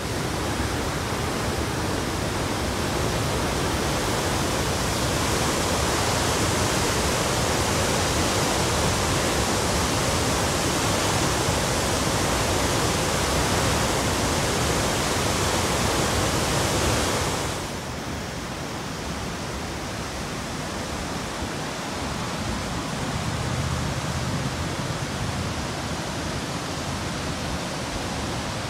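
Muddy floodwater, swollen by heavy rain, rushing and churning over a concrete weir in a river diversion channel: a steady, loud rushing noise. About 17 seconds in it drops in level and turns duller.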